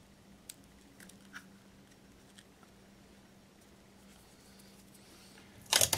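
Fingers pressing and smoothing tape onto the glazed base of a porcelain basket: faint rubbing with a few soft ticks, then near the end a short, loud burst of sharp crackles as the tape is handled.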